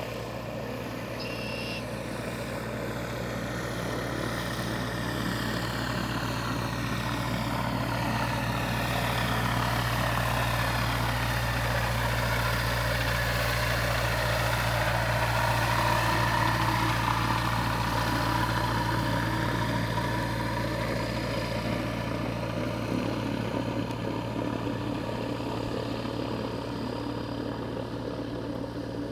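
DTA J-RO gyrocopter's turbocharged Rotax 914 flat-four engine and pusher propeller running steadily at taxi power as it rolls past, growing louder to a peak about halfway through and fading as it moves away.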